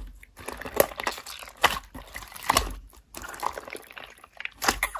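Slime being squished and worked by hand, making irregular wet clicks and pops.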